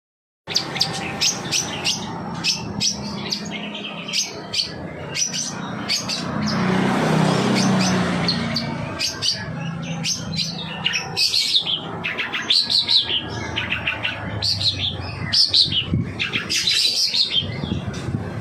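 Long-tailed shrike singing a fast, varied chatter of short, sharp, high notes, starting about half a second in. This is a lure song used to goad other shrikes into singing. A louder rushing noise runs under the song for a few seconds around the middle.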